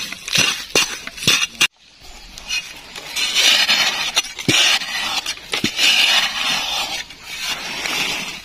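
A digging tool striking and scraping into loose sandy soil while a cricket burrow is dug out: a quick run of sharp knocks, then a longer rush of scraping with a couple of knocks in it.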